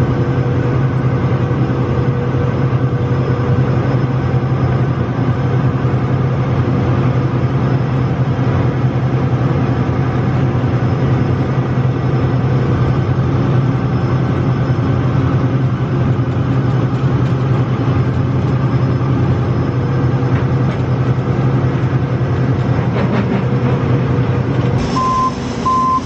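John Deere 9870 STS combine's diesel engine running steadily at close range, a loud even drone. Near the end the drone changes and a backup alarm starts beeping, a little under a second between beeps.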